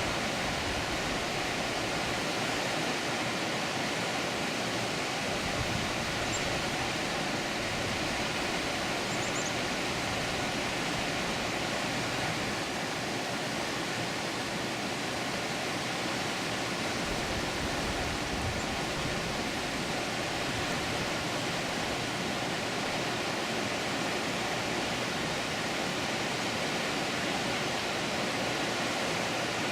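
Water pouring at a dam, a steady, even rush of falling water.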